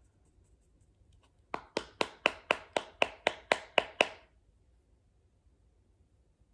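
About eleven quick, evenly spaced taps on a blush compact, about four a second, each with a brief ringing tail, lasting a couple of seconds.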